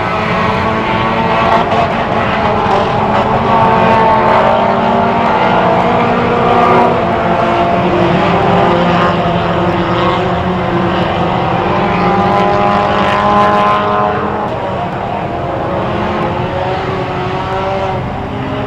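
Several four-cylinder ministock race cars running laps together, their engines overlapping at different pitches that rise and fall as they accelerate and lift, easing off a little near the end.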